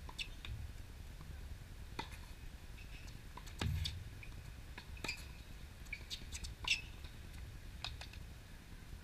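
Tennis rally: sharp pops of racket strings striking the ball and the ball bouncing on the hard court, coming about every second to second and a half, the loudest near the middle and again about three-quarters through, over a steady low rumble.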